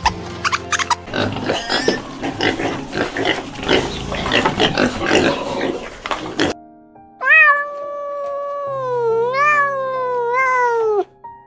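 A cat's long, drawn-out meow of about four seconds that rises and falls in pitch, starting about seven seconds in, over background music. Before it comes several seconds of a dense, noisy animal sound.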